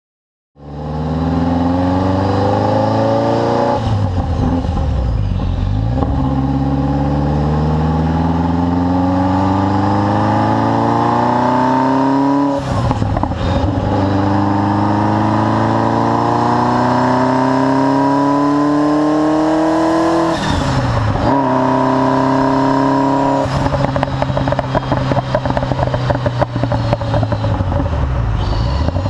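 Ferrari F40 twin-turbo V8 with a Tubi Style exhaust pulling hard through the gears, its pitch climbing steadily in each gear and dropping sharply at each of several upshifts. In the last few seconds the tone turns rough and choppy as the revs fall back.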